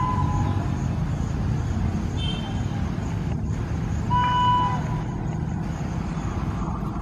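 Electric locomotive's horn sounding over the steady rumble of an express train approaching at high speed on the rails. A horn blast fades out about half a second in, a brief higher toot comes about two seconds in, and a longer blast starts around four seconds in and dips in pitch as it ends.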